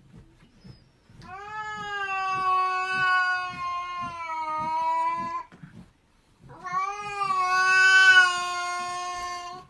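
A cat yowling: two long, drawn-out calls, each held for about three to four seconds, with a short break between them.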